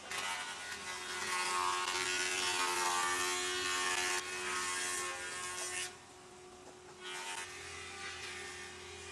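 Wood-processing factory machinery running, a steady hum under a hissing noise. The noise drops away sharply about six seconds in and returns more weakly a second and a half later.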